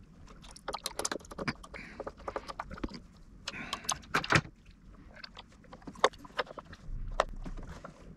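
Irregular clicks, taps and scrapes of a small screwdriver and the hard plastic case of a RadioMaster TX16S radio transmitter being handled as its back panel is screwed shut, with a louder run of scraping about halfway through.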